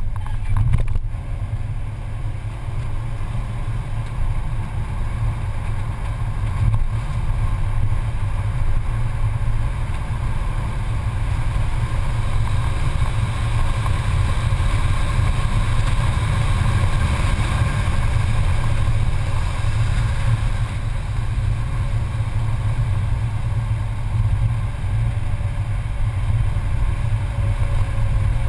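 Mercedes-Benz C280's engine running hard at track speed, heard from inside the cabin over a heavy, steady rumble of road and wind noise; the engine grows louder through the middle stretch along the straight.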